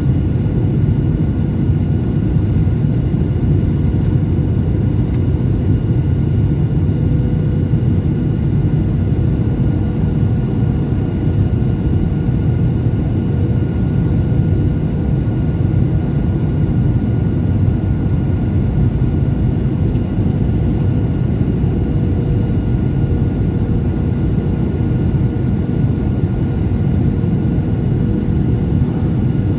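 Steady cabin noise inside a Boeing 737 airliner in flight, heard from a seat over the wing: a constant low rumble of the jet engines and rushing air, with a faint steady whine on top.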